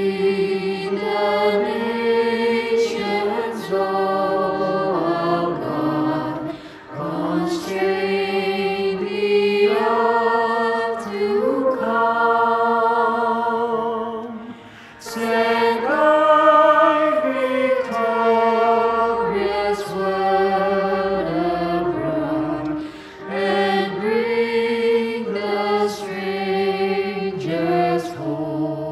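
Group of voices singing a slow hymn verse without accompaniment, in four long sustained phrases with short breaths between them. The singers' separately recorded parts are layered together.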